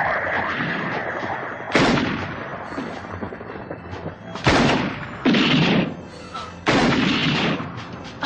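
Pistol gunshots in a film soundtrack: four sharp shots, unevenly spaced a second or more apart, each with a long echoing tail.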